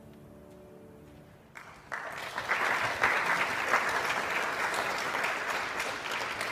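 The last notes of a grand piano die away, then an audience breaks into applause about a second and a half in and keeps clapping.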